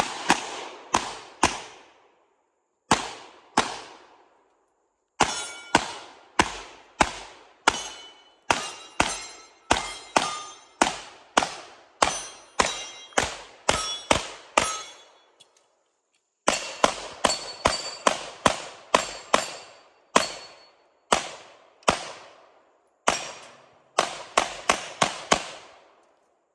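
Pistol shots fired rapidly, mostly as quick double taps, with short pauses between strings. Hits on steel targets ring with a clang.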